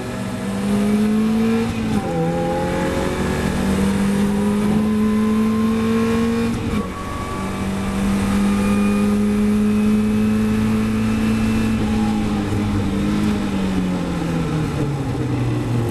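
A Caterham Supersports race car's four-cylinder engine under hard acceleration, heard from the open cockpit. The pitch climbs through the gears with upshifts about two and seven seconds in, holds steady at speed, then falls near the end as the driver lifts off for the next corner, with a steady rush of wind and road noise underneath.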